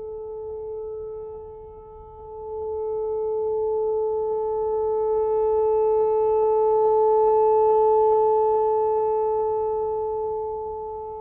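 Whelen WPS-4004 electronic outdoor warning siren sounding a steady alert tone during its monthly test. The tone holds one pitch while the loudness swells and fades as the rotating speaker array sweeps past, dipping a couple of seconds in and peaking near the end.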